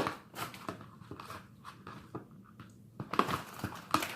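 Sticky slime being squished and kneaded by hand with modeling clay worked into it, giving irregular wet clicks and crackles, busiest at the start and again near the end.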